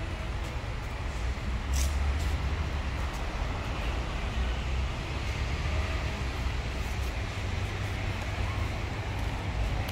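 Steady outdoor background noise with a strong low rumble.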